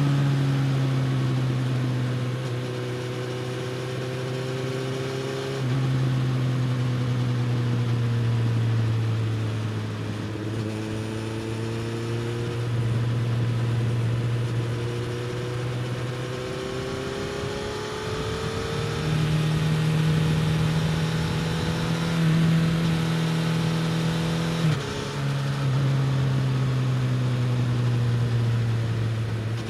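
Suzuki GSX-S1000 inline-four engine through an aftermarket slip-on exhaust, heard on board while riding. It holds a fairly steady note that swells and eases with the throttle, steps up in pitch about two-thirds of the way through, and breaks briefly before dropping back lower near the end.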